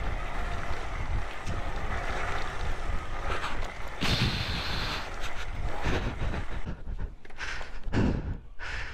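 Wind rushing over a helmet-mounted microphone above the running engine of a Suzuki Van Van 125, a small single-cylinder motorcycle, riding a rocky track, with a louder burst of noise about four seconds in.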